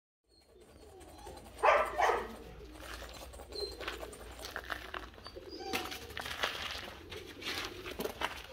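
Pigeons cooing, with a few short bird chirps, over repeated scuffs and crunches on gravel. Two louder sounds come close together about two seconds in.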